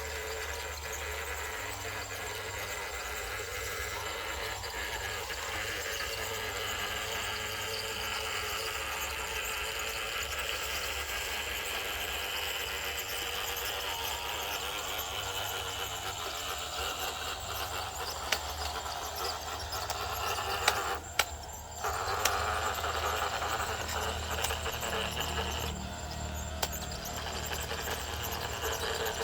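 Electric motor and gearbox of a radio-controlled model truck whining steadily under load, briefly dropping off about two-thirds of the way through, with a few sharp clicks.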